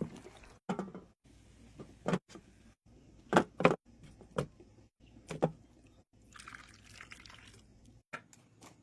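Cookware being handled: a handful of sharp knocks and clinks of a pot, lid or utensils, with a short splash of liquid about two-thirds of the way through, as a stew is checked and served.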